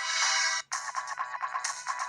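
LG KG800 Chocolate mobile phone playing an electronic ringtone: a held synthesized chord that cuts off about two-thirds of a second in, then a quick, evenly repeating run of beeping notes.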